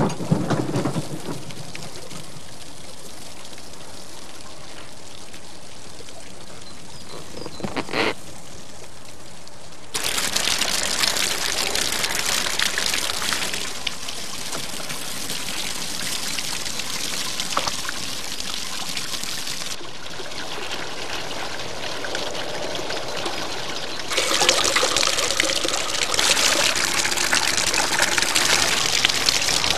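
Water poured from a watering can running through white plastic pipes and splashing out of their open ends. It starts about a third of the way in and gets louder near the end.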